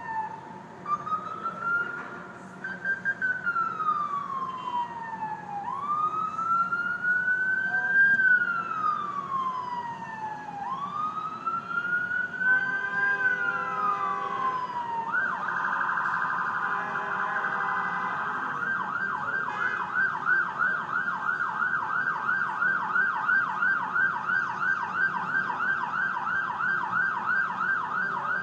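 Ambulance siren: a slow wail rising and falling about every five seconds, switching about halfway through to a fast yelp of three or four cycles a second.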